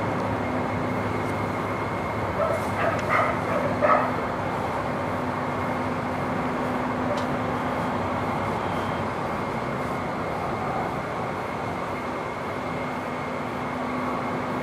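A dog barks a few times in quick succession between about two and a half and four seconds in, over a steady drone and hiss.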